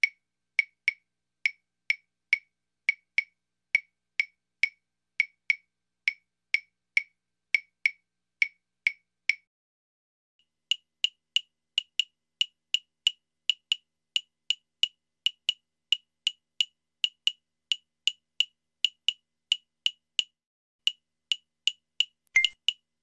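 Wood block struck in a steady beat, about two to three knocks a second. After a brief pause about ten seconds in, the beat resumes on a higher-pitched block, a little faster.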